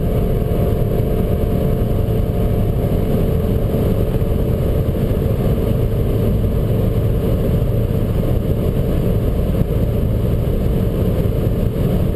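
Opel Astra G's 1.6-litre four-cylinder petrol engine running at high revs near top speed, with steady wind and tyre noise, heard from inside the cabin. The engine note holds a constant pitch.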